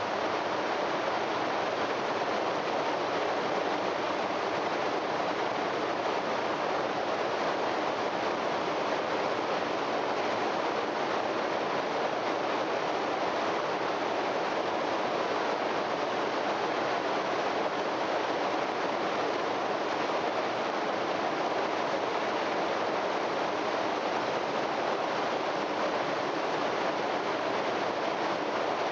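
Niagara Falls: a steady, unbroken rush of falling water, heard through the hiss and narrow bandwidth of an old vinyl transfer.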